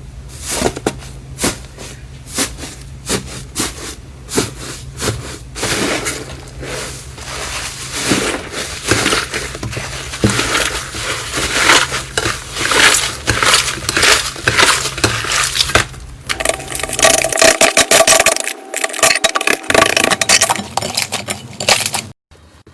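Slime being pressed and squeezed, giving a dense run of crackling, popping clicks that cut off abruptly near the end.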